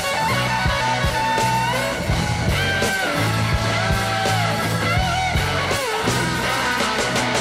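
Background rock music with guitar: lead notes that slide between pitches over a steady bass line and beat.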